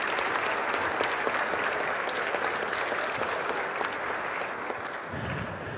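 Applause from a small group clapping their hands, an even patter of many claps that slowly tapers off toward the end.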